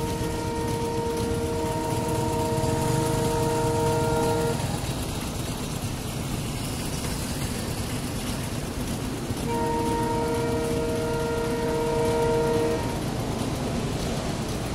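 An approaching train's horn sounding two long blasts, the first about four and a half seconds, the second about three seconds starting partway through, over a steady low rumble of waiting motorbikes and traffic.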